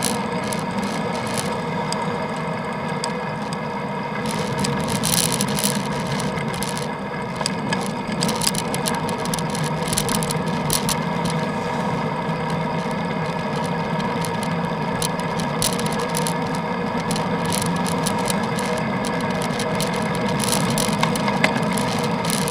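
Steady rattling and road rumble of a bicycle being ridden, picked up by the action camera filming the ride, with scattered clicks and knocks.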